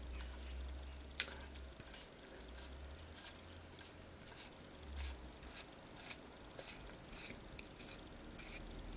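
Faint, irregular small clicks and ticks as fingers turn the threaded back plate off a PCP air rifle's gauge and valve assembly, with metal parts shifting in the hands.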